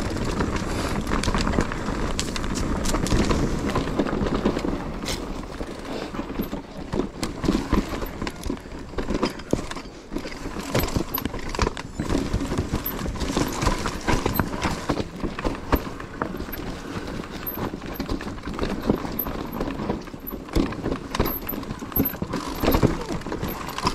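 Enduro mountain bike ridden over rough, rocky trail: an irregular clatter of knocks and rattles from the tyres, chain and frame over the bumps, above a steady rumble.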